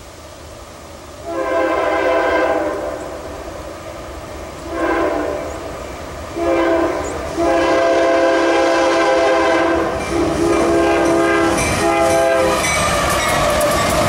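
Union Pacific diesel locomotive's multi-chime air horn sounding a series of long and short blasts as the train approaches a grade crossing. Near the end the locomotive and tank cars pass with a rumble and the clatter of wheels on the rails.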